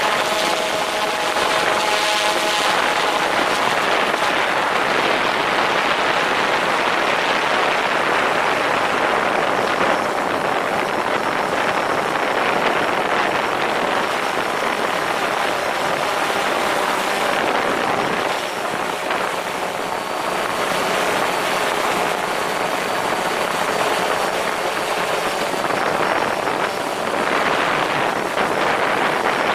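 DJI Phantom 4 quadcopter's motors and propellers running steadily in flight, a loud even whir heard from a camera mounted just beneath the drone, with faint whining tones that shift in pitch now and then.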